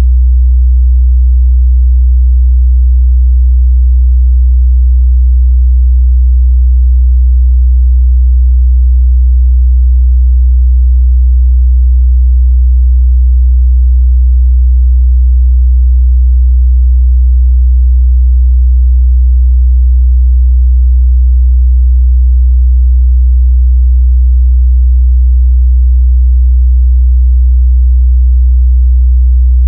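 Steady, loud 62 Hz sine test tone, a single low bass hum that holds constant in pitch and level.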